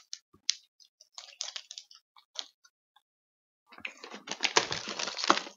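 Plastic candy wrappers crinkling as they are handled: scattered small crackles at first, then a dense, louder run of crinkling from about four seconds in.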